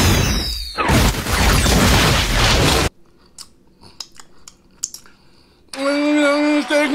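A loud rushing roar with a falling whistle for about three seconds, a jet-and-flares sound effect, cuts off suddenly. Then come quiet wet lip smacks and finger-licking clicks from eating, and about six seconds in a man's low, drawn-out satisfied hum.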